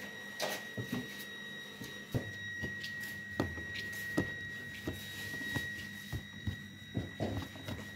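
Dough being handled on a wooden cutting board: scattered soft knocks as hands press and slap it on the board, with a plastic bag rustling about half a second in. A steady high whine and a low hum run underneath throughout.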